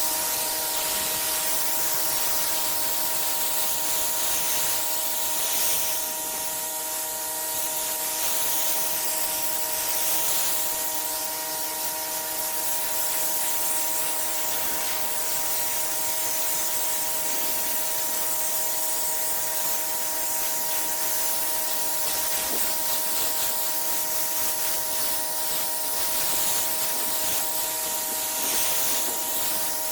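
Pressure washer spraying water: a steady, strong hiss of the high-pressure spray over the constant hum of the machine running.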